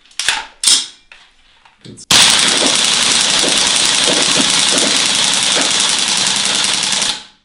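CBB airsoft rifle, an AR-15-style gun with a hybrid operating system, firing a single full-auto burst: a rapid, even string of shots that starts abruptly about two seconds in, runs for about five seconds and cuts off sharply.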